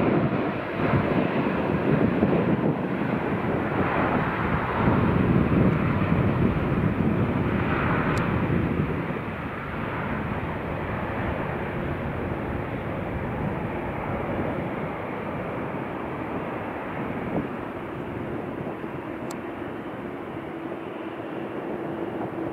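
Jet engines of an Airbus A321 airliner: an even jet noise, loudest for the first nine seconds or so, then easing to a steadier, slightly lower level. A faint steady tone joins it near the end.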